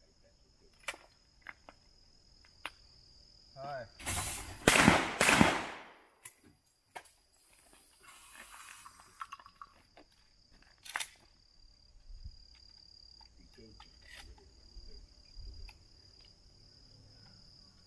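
Two shotgun shots about half a second apart, each with a short ringing echo, nearly five seconds in. Smaller sharp clicks come now and then, over a steady high-pitched hum.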